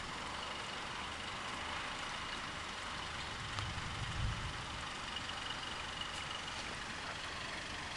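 Steady background hiss with a faint low rumble swelling and fading about four seconds in.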